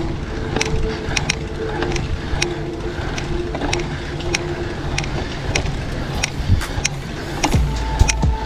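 Road bicycle climbing a steep grade at walking pace: a sharp click in time with each pedal stroke, about one and a half a second, over steady road and wind noise. A low rumble comes in near the end.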